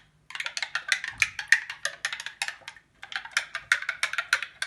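Metal spoon stirring liquid in a glass cup, clinking rapidly against the glass, with a short pause about halfway through.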